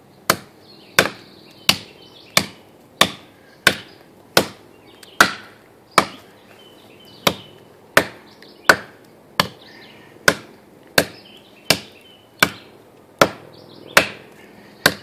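Steel battle cleaver chopping into the trunk of a living, wet pine tree: about twenty hard, sharp strikes at an even pace of roughly three every two seconds. The blade is hacking through a dense knot in the trunk.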